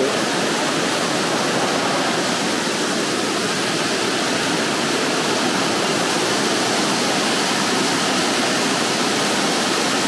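Mountain stream rushing steadily and loudly.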